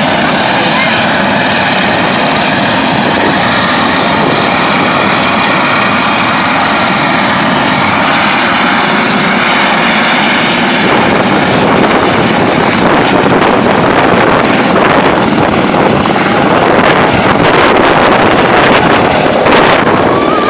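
Eurocopter EC130 helicopter's turbine and main rotor running at high power, growing louder about halfway through as it lifts off, with rotor downwash buffeting the microphone.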